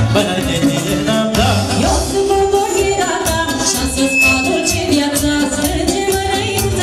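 Live band playing lively folk dance music with a steady beat, a woman singing the melody into a microphone.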